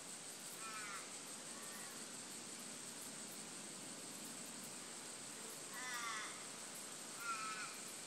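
A crow cawing four times: two calls near the start, the second fainter, and two louder ones near the end, over a steady high hiss of the forest background.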